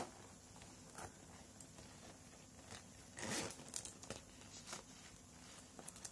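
Metal zipper on a leather backpack's side pocket being pulled, one longer zip about three seconds in, among light clicks and rustles of the bag being handled.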